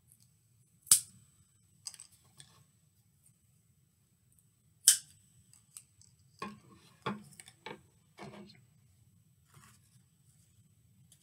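Scissors snipping through plastic drinking straws: two sharp snips about four seconds apart, then a cluster of lighter clicks and taps.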